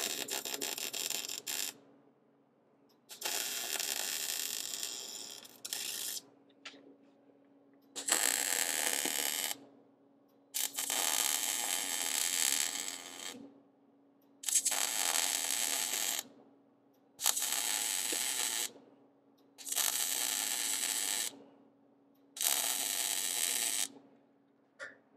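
MIG welding on steel engine mounts: the arc crackles in about eight short runs of one and a half to three seconds each, stopping and restarting with brief pauses between.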